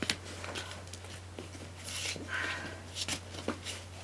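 Rustling and scattered light knocks of bags, straps and clothing as a person moves about loaded with a backpack and several bags, over a steady low hum.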